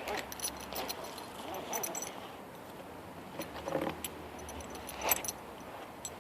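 Small metal parts jingling and clicking in short clusters as a rigger's belt and its hardware are unbuckled and handled, with one cluster about a second in and more near four and five seconds.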